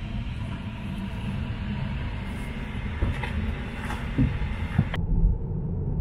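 Car on the move, heard from inside the cabin: a steady low engine and road rumble. A lighter hiss over it drops away suddenly about five seconds in.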